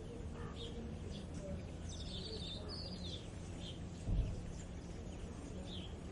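Songbirds chirping and trilling in short, scattered phrases over a steady low background rumble, with one brief low thump about four seconds in.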